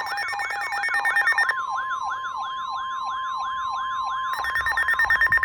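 Electronic emergency alert tones between severe thunderstorm warnings: a siren-like tone sweeping up and down about four times a second, with fast buzzing pulses at first. About a second and a half in a steady alert tone joins the sweep, and the buzzing pulses come back near the end.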